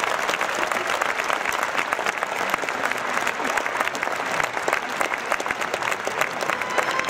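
A large audience applauding, many hands clapping at once at a steady level throughout.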